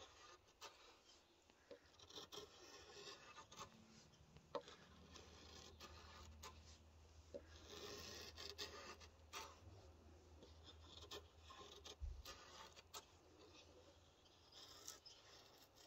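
Odenwolf W machete's blade drawn along dry aspen like a drawknife: faint repeated scraping and shaving strokes with a few sharp ticks as the edge bites into the hard wood.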